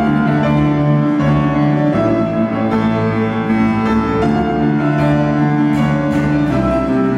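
Music on a Petrof grand piano, a piece played from sheet music, with long held low notes underneath.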